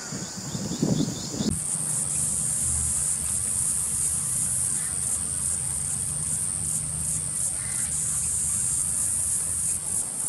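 Shrill, high-pitched insect chorus with a slight pulsing. About a second and a half in it switches abruptly to a higher, louder drone, with a low steady hum underneath.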